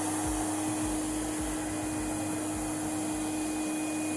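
Robot vacuum (360 S10) running steadily: an even motor drone with one constant tone and a hiss of air.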